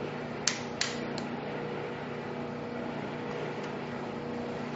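Three sharp metallic clicks of a compact Sig pistol being handled, the first the loudest, about half a second to a second in, over a steady ventilation hum.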